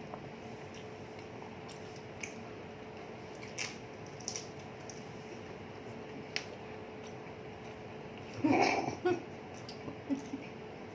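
Faint wet chewing and mouth sounds of people eating dahi fuchka, with scattered small clicks. A brief louder burst comes about eight and a half seconds in, all over a steady faint hum.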